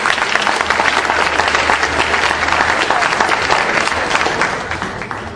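Audience applauding, the clapping thinning out and dying down near the end.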